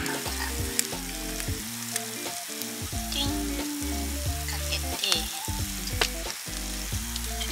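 Thick fried tofu (atsuage) sizzling steadily in a frying pan, with a few light clicks, over background music.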